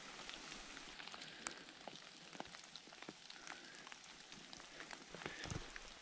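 Light rain pattering steadily, with many small scattered ticks of drops. A soft thump comes near the end.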